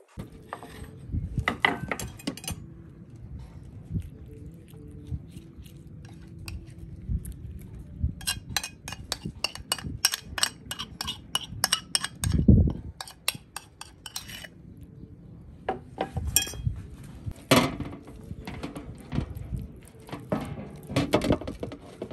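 A utensil clinking and scraping against a ceramic bowl and dishes clattering on a metal baking tray as chili paste is spooned out, a run of sharp clinks, with one heavier thump about twelve seconds in.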